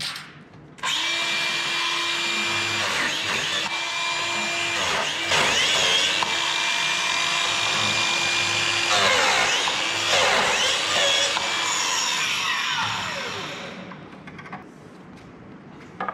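Cordless biscuit joiner running at speed. Its whine dips in pitch and recovers a few times as the blade cuts into the wood, then winds down with a falling whine near the end.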